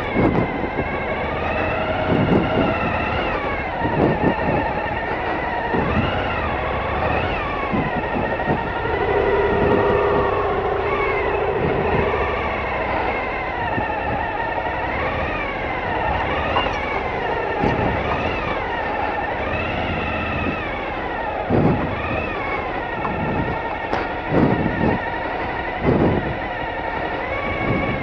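Adventure motorcycle engine revving up and down over and over as the bike is ridden through ruts, with wind noise on the microphone and occasional thumps.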